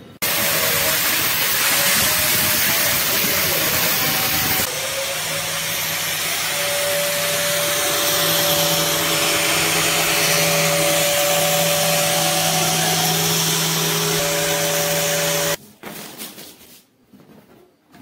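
Handheld angle grinder running and cutting PVC: a harsh grinding hiss over a steady motor hum. It cuts off abruptly near the end.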